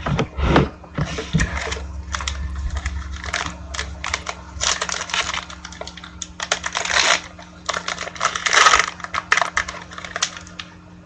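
A trading-card box and its pack being opened by hand: cardboard and wrapper rustling and tearing, with many small clicks and a few louder swishes of handling.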